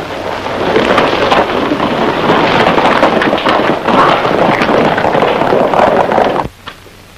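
Hoofbeats of several horses galloping off on a dirt street, a dense clatter over a rumble that builds in the first second and stops abruptly about six seconds in.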